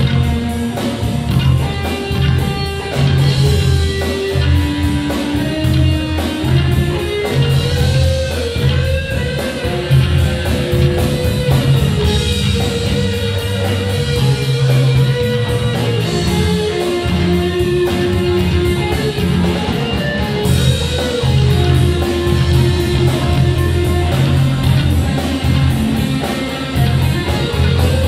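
Live rock band playing loudly: electric guitars over a drum kit, with a continuous, steady wall of sound.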